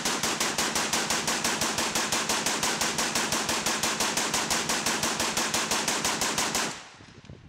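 Browning Automatic Rifle firing on full automatic in one long, even string of shots, about seven a second, stopping abruptly about seven seconds in.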